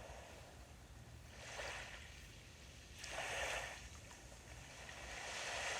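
Small sea waves washing onto the shore: three soft swells of surf, about one and a half seconds apart, each rising and falling away.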